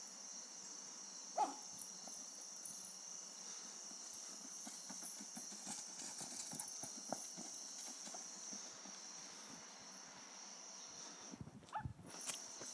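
Faint scuffling and light taps of a small dog pushing a ball with its nose across grass and dry leaves, over a steady high hiss, with one brief squeak about a second and a half in.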